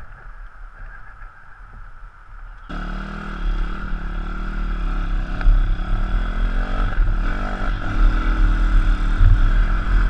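160 cc pit bike's single-cylinder four-stroke engine coming in abruptly a few seconds in and revving as the bike rides off, its pitch rising and dipping with the throttle. Before that there is only a low rumble.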